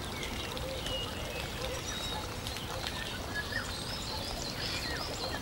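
Background nature ambience: small birds chirping faintly over a steady rushing noise.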